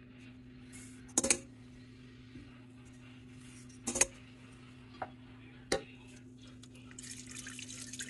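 Small dishes clinking against a stainless steel mixing bowl four times as yeast and sugar are tipped in. Near the end, warm water pours into the bowl over a steady low hum.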